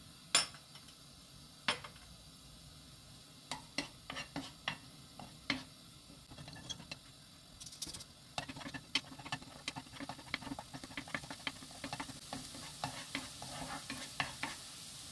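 Wooden spoon knocking and scraping in a nonstick frying pan as minced garlic is stirred in hot oil, a few separate taps at first. From about eight seconds in, the oil begins to sizzle and crackle around the garlic, the crackling growing denser toward the end.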